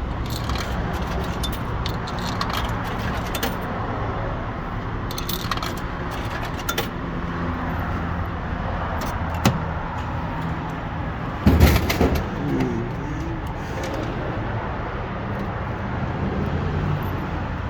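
Steady rumble of passing road traffic, with a few metallic clicks and, about two-thirds of the way through, a heavy thump and brief rattle: a soda can dropping into the vending machine's delivery bin.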